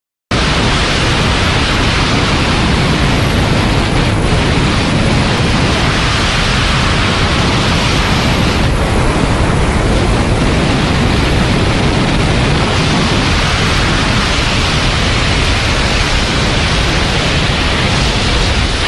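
Loud, steady rush of wind buffeting a camera microphone moving at flying speed, with no distinct engine whine standing out.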